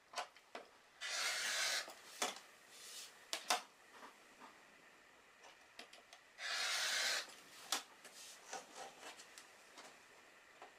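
Rotary cutter run along a quilting ruler, slicing through fabric on a cutting mat: two cuts, each a steady scratchy hiss about a second long, some five seconds apart. Light knocks and taps come in between as the ruler and fabric are handled.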